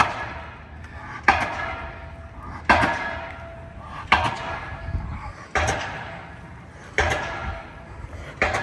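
Pier pile driver striking a steel pile at a steady beat, about one blow every second and a half, seven blows in all, each with a metallic ring.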